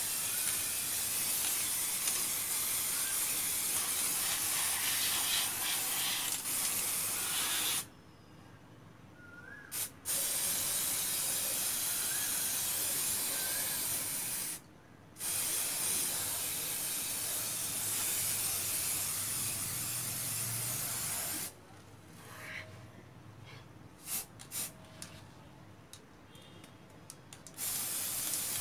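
Aerosol can of matte black spray paint hissing in long bursts as it lays down a first coat. The bursts last about eight seconds, then four and a half, then six, with short breaks between them. A quieter pause with a few faint clicks follows, and a last burst starts near the end.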